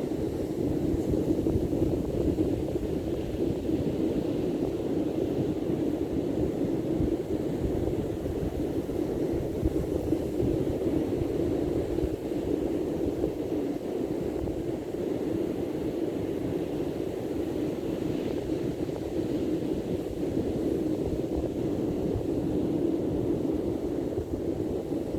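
Steady low rushing noise of wind and sea surf, even throughout with no distinct events.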